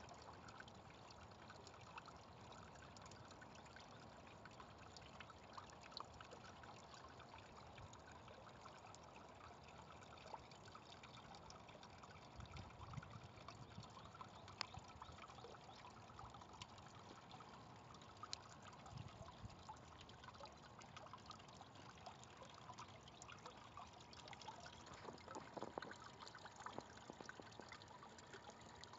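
Faint steady trickle of water running down the steel column of a wind harp's water feature, with scattered small drips and splashes.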